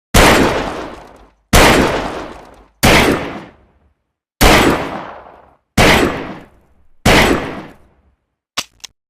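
Six shots from a cheap 'Saturday night special' revolver, one about every second and a half, each sharp crack followed by a long echoing decay. A couple of light clicks come near the end.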